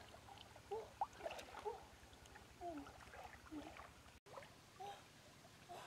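Faint water splashing and sloshing as someone wades through a shallow river pushing a metal basin, with a few short rising-and-falling calls over it. The sound cuts out for a moment about four seconds in.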